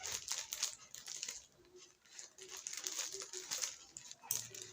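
A parcel's packaging being crinkled, rustled and torn open by hand, with a short lull near the middle.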